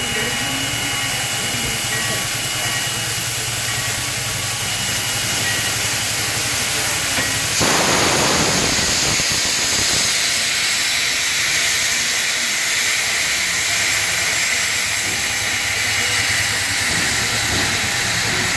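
Steam locomotive hissing steadily as steam vents low near its front, with a sudden louder burst of hiss about eight seconds in that carries on afterwards.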